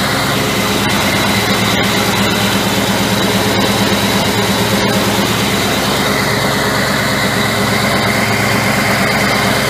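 1956 Chevrolet pickup's V8 engine idling steadily.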